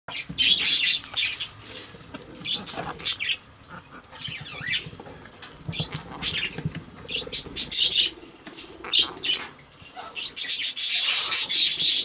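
Quaker parrot (monk parakeet) preening, with scattered soft clicks and scratches. From about ten seconds in comes a loud, steady rustle of its feathers being ruffled.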